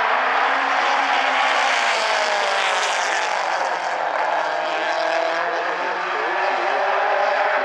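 A pack of mini stock race cars with four-cylinder engines running hard together. Several engine notes overlap, rising and falling as the cars go through the turn.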